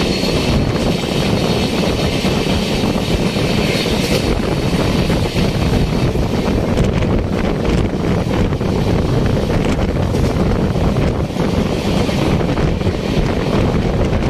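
Loud rush of wind on the microphone and wheels on rail from a moving Indian passenger train, recorded out of an open coach door. For the first few seconds a train passing close by on the next track adds a hiss, which fades about four seconds in.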